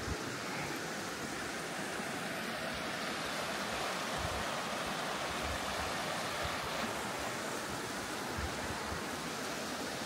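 Rocky fell stream rushing steadily over stones and small rapids, with light wind buffeting the microphone now and then.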